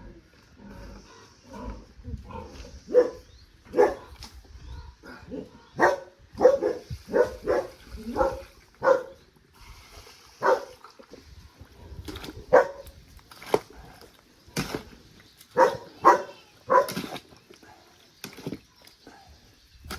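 Farm animals calling: a string of short, loud calls at an uneven pace, some coming in quick runs.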